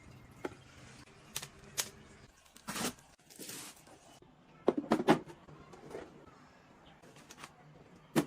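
Scattered sharp clicks and knocks with short swishes, like small objects being handled, and a louder cluster of knocks about five seconds in.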